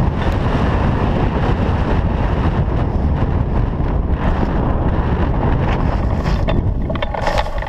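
Wind noise from the airflow of a flying hang glider buffeting a camera mounted on the glider: a loud, steady rush that eases slightly in the last moment.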